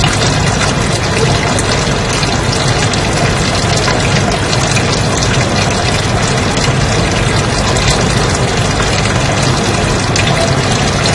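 Steady white noise: an even, unbroken hiss spread across all pitches.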